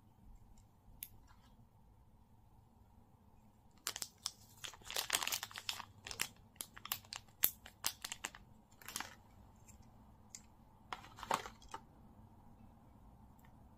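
Small clear plastic bag crinkling and crackling in the hands, in quick irregular crackles: a long spell starting about four seconds in and a short one near the end.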